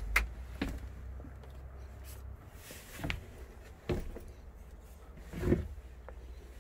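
A handful of separate knocks and thumps, five in all, the one at about five and a half seconds the longest, over a low rumble that stops about two and a half seconds in.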